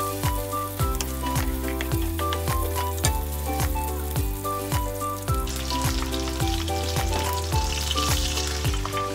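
Background music with a steady beat over food sizzling in a frying pan with a wooden spatula stirring. The sizzle grows louder in the second half as beaten egg is poured into the hot oil.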